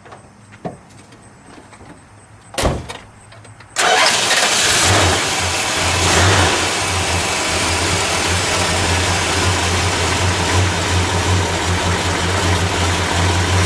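A short burst of noise, then about a second later the 1970 Dodge Coronet R/T's 440 cubic-inch V8 fires up and settles into a steady, loud idle.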